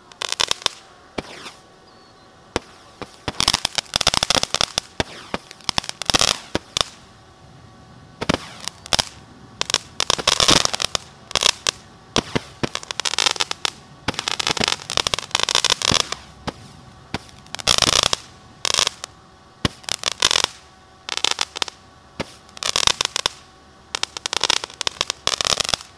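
Consumer fireworks firing a long run of shots: sharp pops followed by dense crackling bursts, recurring every second or two.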